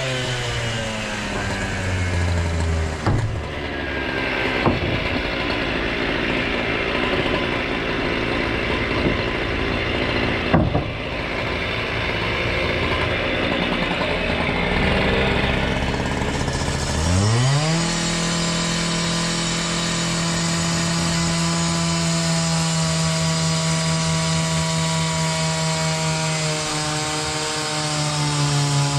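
Two-stroke petrol cut-off saw cutting masonry. The engine pitch sags at first and a harsh grinding noise runs for about fifteen seconds; about seventeen seconds in the engine revs up quickly and holds steady at high revs.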